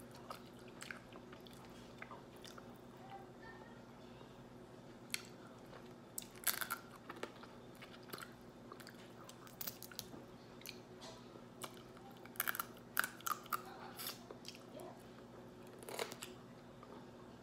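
Close-up eating of seafood-boil crab: scattered small cracks and clicks of shell being picked apart, with chewing and sucking meat from the shell. The cracks come in a few louder clusters, over a faint steady hum.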